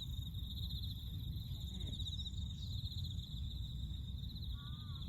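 Insects, crickets or similar, chirring in a steady high trill made of rapid pulses, over a steady low rumble. A few faint gliding calls come in near the end.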